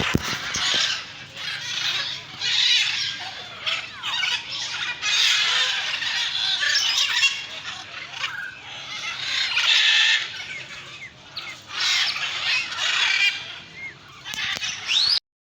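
Birds squawking in repeated harsh, irregular bursts, from a crested guineafowl and peahen sparring. The sound cuts off suddenly near the end.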